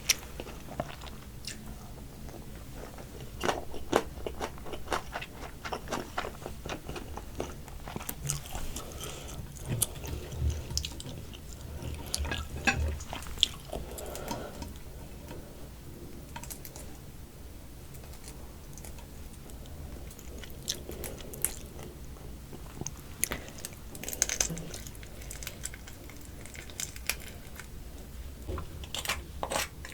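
Close-miked eating of soy sauce marinated raw crab: biting, crunching through the shell and chewing, with sharp cracks coming in bursts and a quieter stretch of chewing in between.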